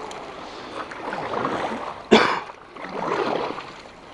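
A small boat being paddled through dense water lilies: swishing strokes through water and leaves, with one sharp, loud hit about two seconds in.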